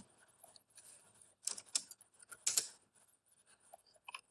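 Computer keyboard keys and mouse buttons clicking: a handful of short sharp clicks, the loudest about two and a half seconds in and another just after four seconds.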